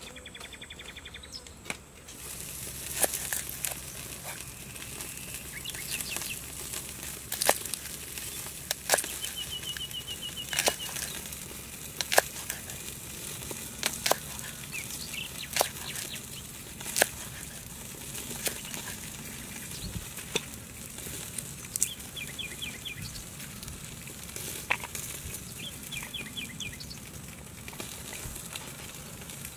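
Knife slicing garlic cloves on a round wooden chopping block: a dozen or so sharp knocks of the blade against the wood at irregular intervals. Birds chirp in short rapid trills in the background.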